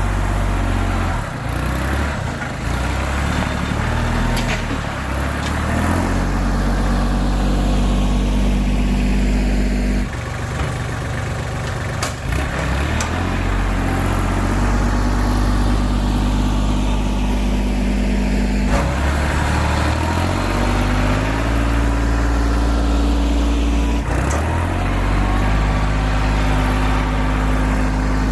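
Kubota compact tractor's diesel engine running while it works a box blade through gravel, its pitch stepping up and down several times as the revs change, with a few sharp clanks.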